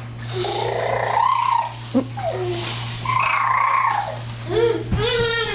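A cat yowling, a string of about five drawn-out meows, each up to about a second long and bending in pitch, over a steady low electrical hum.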